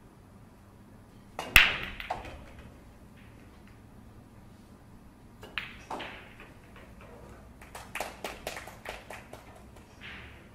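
Pool break shot: a loud crack as the cue ball smashes into the racked balls about a second and a half in, then balls clacking off one another. Further sharp ball clicks come a few seconds later, and a quick run of clicks near the end.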